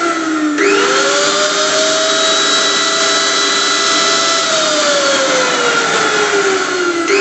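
Electric blender motor running with a steady whirring whine. Its pitch jumps up sharply about half a second in, holds, then slowly sags during the second half before jumping up again near the end.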